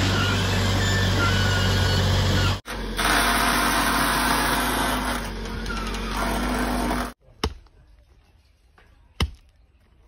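Backhoe's diesel engine running steadily with a strong low hum, in two clips, cutting off abruptly about seven seconds in. After it a quieter stretch with two sharp knocks.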